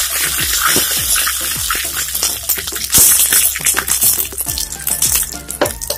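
Tempering of mustard seeds, curry leaves and dried red chillies sizzling in hot oil in a small pan: a steady frying hiss full of small crackles and pops, with a few sharper pops about halfway through.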